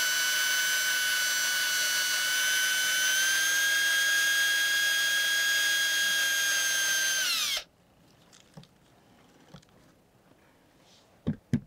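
AEG cordless drill running steadily as it drills out the thin rivets holding a boat's circuit breaker together. Its pitch steps up slightly partway through, and it stops about two-thirds of the way in. Two sharp clicks come near the end.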